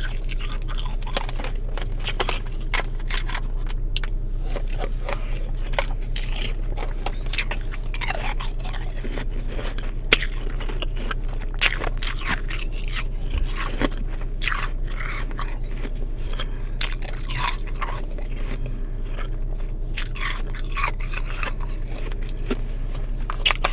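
Close-up crunching and chewing of powdery freezer frost, with irregular crisp bites and crunches throughout, over a steady low hum.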